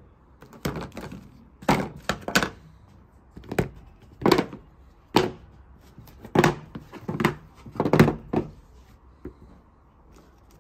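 About a dozen sharp knocks and thuds at irregular intervals, some in quick clusters, stopping a little over nine seconds in.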